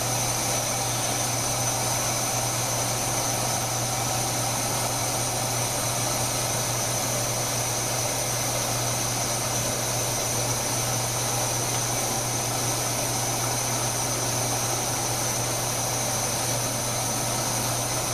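Older-model MSR Whisperlite International liquid-fuel stove burning white gas, its pressurised burner running with a steady, even rush at medium heat under a metal pot of water.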